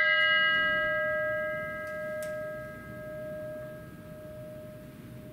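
A single struck bell ringing on and slowly fading away, its clear pitched tone fading over several seconds, with a faint click about two seconds in.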